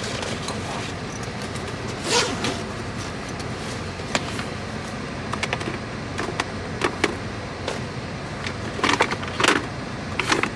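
Belongings being picked up and moved around inside a car: scattered clicks and knocks, a few close together near the end, over a steady low hum.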